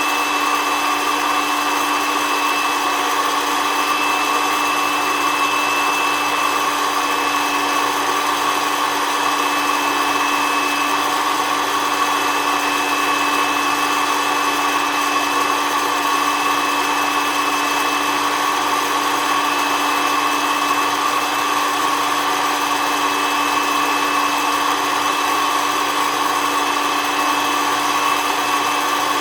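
SOUYI SY-121N hot-air coffee roaster running steadily, its fan blowing with a constant whine.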